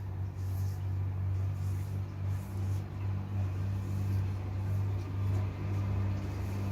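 Steady low hum of a running electric motor appliance.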